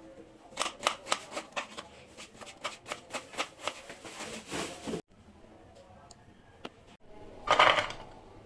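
Knife chopping vegetables on a cutting board: a quick run of sharp knocks, several a second, which stops abruptly about five seconds in, followed by a short, louder scraping rush near the end.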